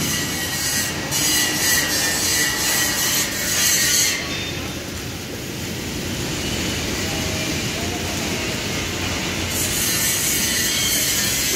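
Welding arc from a Fimer TM500 welding machine giving a steady crackling hiss for about the first four seconds. It stops, then strikes again near the end, over the constant noise of a large metal workshop.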